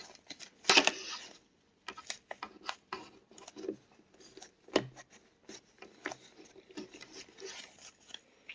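Plastic ear-pad ring being pressed and worked onto a headphone ear cup by hand: scattered small clicks, scrapes and rubbing, with a louder rustle about a second in.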